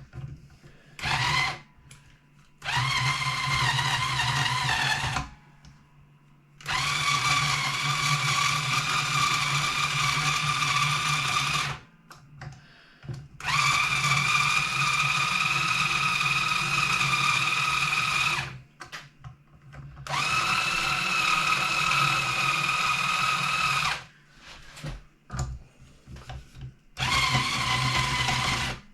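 A motorized string winder whining as it spins the tuning pegs to unwind the guitar's strings. It runs in repeated bursts of a few seconds each, with short pauses between, and rises briefly in pitch as it spins up.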